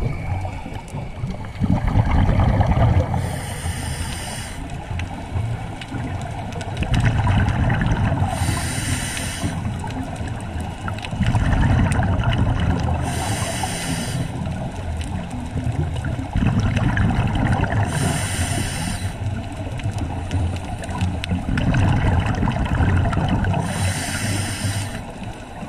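Scuba diver breathing through a regulator underwater: a short hiss of inhaled air comes about every five seconds, five times, and between them the exhaled bubbles rumble and gurgle past the microphone.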